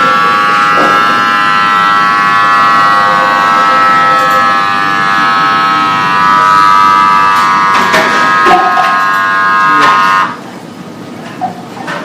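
Automatic blood pressure monitor's pump buzzing steadily as it inflates the cuff, then stopping abruptly about ten seconds in. A few knocks and clicks come near the end.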